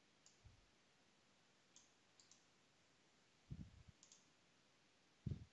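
Faint computer mouse clicks, a few scattered ticks, with a couple of soft low thumps near the middle and end; otherwise near silence.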